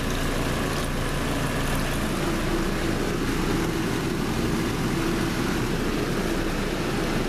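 Arksen 11-pound portable washing machine spin-drying: the spin motor runs steadily while the water spun out of the clothes drains away.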